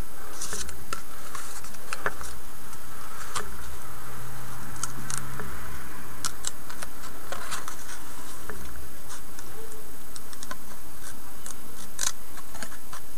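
Small scissors snipping cross decals out of a paper decal sheet: a run of short, irregularly spaced snips.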